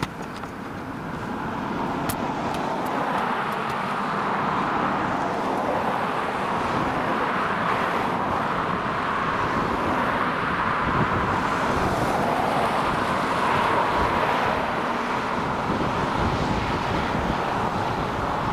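Steady noise of road traffic, with cars passing one after another on the road; it rises about two seconds in and then holds.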